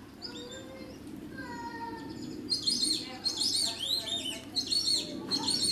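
Birds chirping in a dense, rapid run of quick high arched chirps that starts about halfway through and stops near the end, over a low murmur of distant voices.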